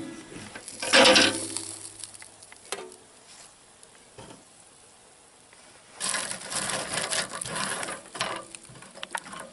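Grill with turkey thighs cooking: a sharp metal clank with a short ring about a second in, then a stretch of sizzling and crackling for about two seconds near the end.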